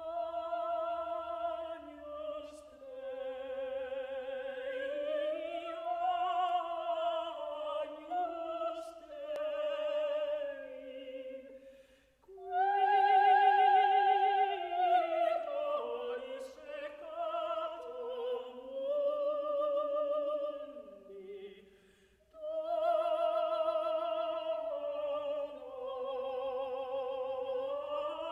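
Operatic singing: a single voice with strong vibrato holding long, sustained notes, in three phrases with brief pauses about twelve and twenty-two seconds in.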